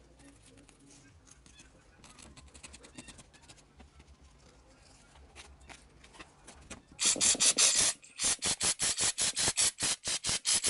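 Faint rubbing of a rag on a plastic carburetor float bowl, then an aerosol can of carburetor cleaner hissing: one long spray about seven seconds in, followed by a rapid run of short spurts, several a second, applied to break up the old-fuel deposits on the bowl.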